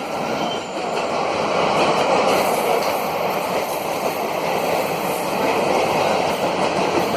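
Express train running through a station at speed behind a WCAM-3 electric locomotive: a steady loud rush of wheels and coaches on the track, with no horn sounded.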